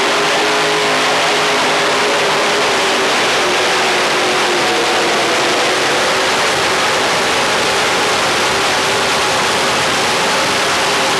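Modified pulling tractor's engine running flat out under load as it drags the weight sled. It is a loud, steady, high-revving howl that holds its pitch, sagging slightly toward the end.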